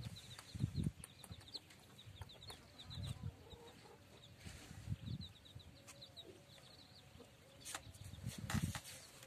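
Chicks peeping: quick, short, high cheeps several times a second, stopping for a while and starting again, with a hen's low clucking. Some low thumps and knocks are heard too, most of them near the end.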